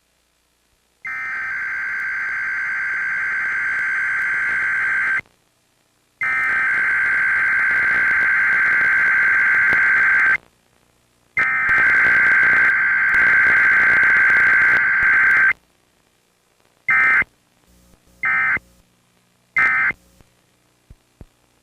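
SAGE EAS ENDEC sending its Emergency Alert System digital header: three long bursts of buzzy, warbling data tones, each about four seconds with a second's gap between them, followed near the end by three short end-of-message bursts.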